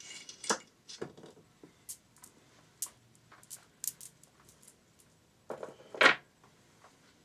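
Yamaha XT600 cam chain handled and lifted out of the engine: scattered light metallic clicks and clinks of chain links and metal parts, with one louder clank about six seconds in.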